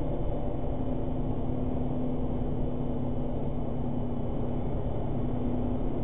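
Steady road and engine noise inside the cab of a cash-in-transit vehicle at highway speed. A steady droning tone comes in about a second in.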